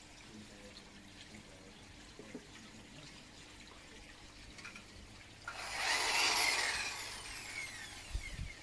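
Cordless drill run briefly with nothing in the bucket, a loud whir that starts suddenly about five seconds in and fades over about two seconds as its whine falls in pitch while it spins down. A few dull knocks follow near the end.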